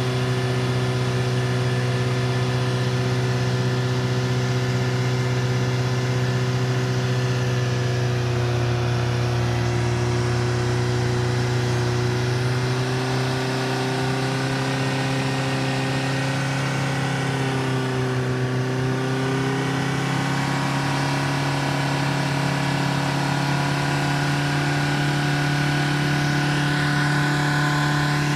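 VW Golf Mk3 1.9 TDI four-cylinder turbodiesel held at steady high revs in a burnout, the drive wheels spinning. The pitch dips briefly about two-thirds of the way through, then holds again.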